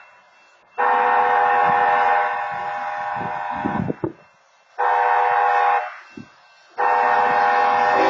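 A locomotive air horn sounding the grade-crossing signal: a long blast of about three seconds, a short blast of about one second, then a final long blast starting near the end. This is the tail of the long-long-short-long pattern that announces the train is about to cross a road.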